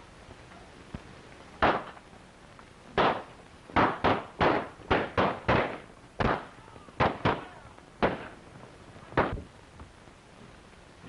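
Gunshots in an irregular volley: about a dozen sharp bangs over some eight seconds, several in quick succession, each with a short echo.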